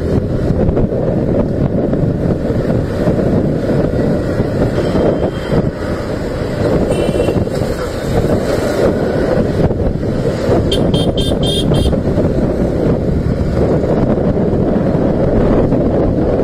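Motorcycle riding at speed in traffic, with steady wind rush on the microphone over the engine. A short horn toot comes about seven seconds in, and a quick run of several honks about eleven seconds in.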